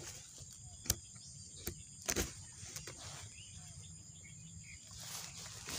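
Faint outdoor background with a few sharp clicks and snaps close to the microphone, at about one second, just under two seconds, and a louder one a little after two seconds in.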